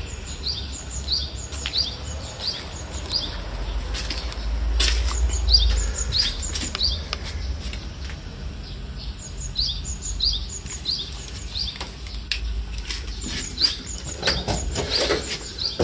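A bird chirping outdoors at dawn, repeating short high notes about two to three a second in runs of a few seconds, with a low rumble underneath and a few clicks near the end.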